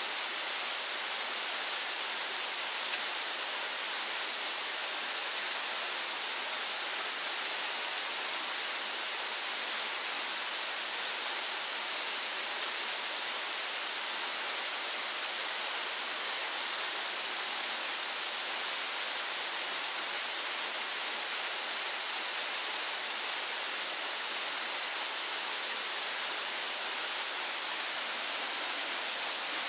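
A steady, even hiss that does not change, strongest in the high end, with no clicks or breaks.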